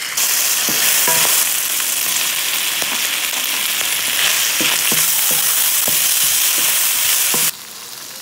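Chicken and vegetable stir-fry sizzling in hot oil in a nonstick pan, with scattered short knocks and scrapes of a utensil against the pan as it is stirred. The sizzle drops suddenly to a quieter level near the end.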